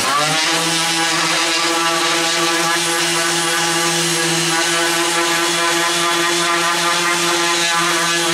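Electric random orbital sander running on a wooden board: the motor spins up at the start, runs with a steady hum, and winds down near the end.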